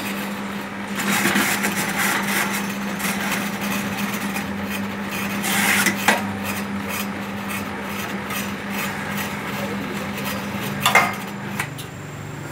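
Young-coconut husk trimming machine at work: its blade scrapes and shaves the husk off a young coconut, with sharp knocks of the metal lever and blade. A steady hum runs underneath and stops near the end.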